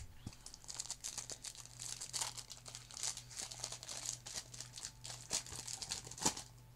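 A hockey card pack's wrapper crinkling and tearing as it is ripped open: a dense run of crackles lasting several seconds, with one sharp crackle near the end.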